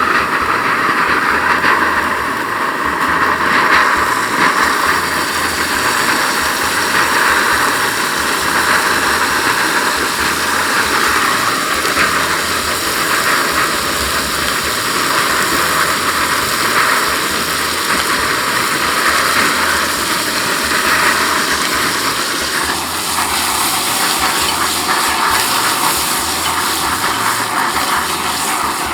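Ribeye steak sizzling and crackling in a hot skillet after butter, garlic and rosemary have been added to the pan.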